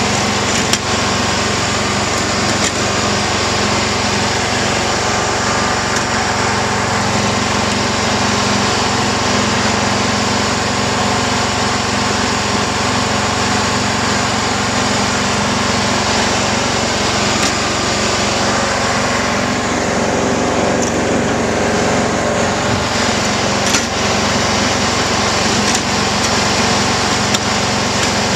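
John Deere GT262 garden tractor's engine running steadily at an even speed while the tractor pushes snow with its front blade.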